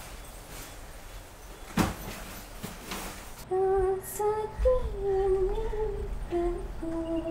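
Quiet room tone with one sharp click about two seconds in. Just past halfway a female voice starts humming a slow tune in long held notes that step up and down.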